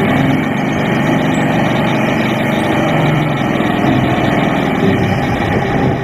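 Heavy dump truck diesel engines running steadily while the tipper beds are raised to unload soil.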